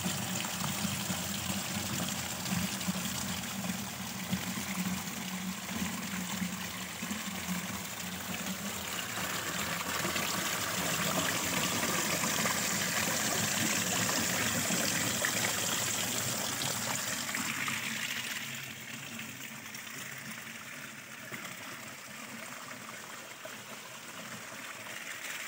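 Spring water pouring and splashing into a plastic jerry can, then water cascading over rocks. The rushing drops to a lower, steady level about two-thirds of the way through.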